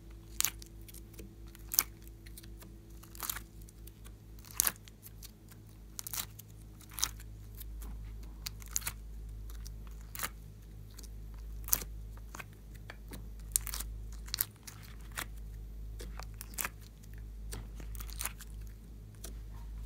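Small pieces being pressed and popped out of a soft silicone heart-shaped mould: irregular sharp clicks and crackles, one or two a second, over a low steady hum.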